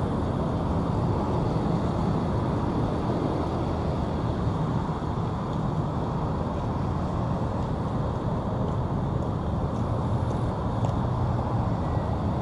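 Steady road traffic on a busy city street, a continuous din of passing vehicles.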